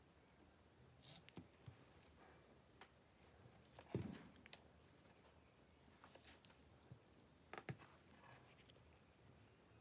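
Faint handling noises from a smartphone and its charging cable being moved about on a silicone repair mat: a few light clicks and taps, with one soft thump about four seconds in.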